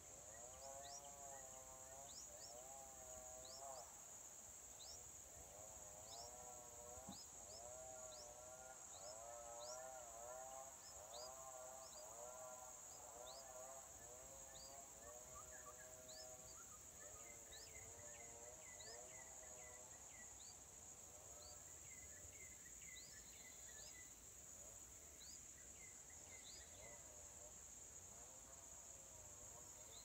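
Faint woodland ambience: wild birds calling, with a repeated wavering call through the first two-thirds and short high notes about once a second, over a steady high-pitched drone.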